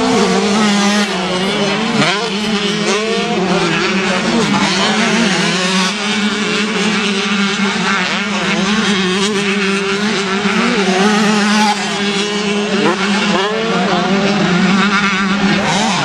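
Several two-stroke motocross bikes racing, their engines revving up and down with throttle and gear changes, over a steady low drone.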